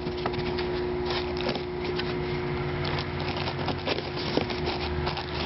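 Paper wrapping and a cardboard parts box rustling and crinkling as the box is unwrapped and opened by hand, over a steady hum.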